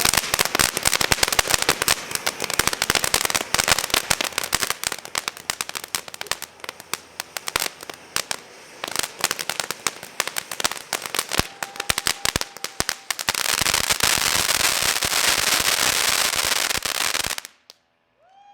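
A string of firecrackers crackling in a fast, dense run of pops that thins out after about six seconds. Near the end a steady hiss takes over, then stops abruptly.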